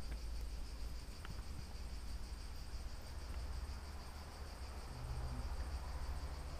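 Insects chirring steadily, a thin high-pitched buzz, over a low rumble on the microphone.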